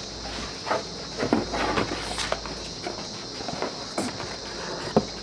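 Corrugated plastic snow goose silhouette decoys being lifted and shuffled by hand: irregular light knocks and scuffs of the plastic sheets, the sharpest knock near the end.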